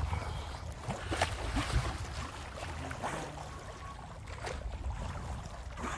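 Sea water splashing and sloshing against the side of a small boat over a steady low rumble, with several short, sudden splashes.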